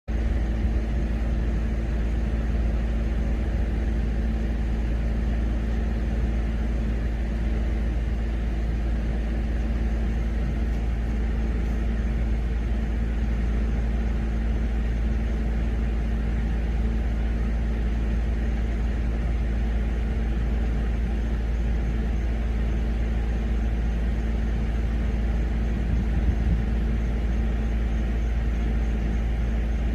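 A steady low rumble with a constant machine-like hum, unchanging throughout.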